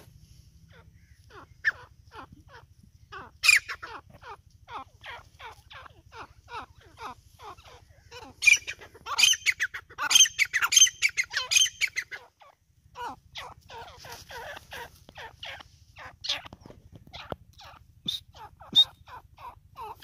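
A teetar (francolin) calling in a long run of short, quick falling notes, two to four a second, busiest and loudest about halfway through. A faint low steady hum runs underneath.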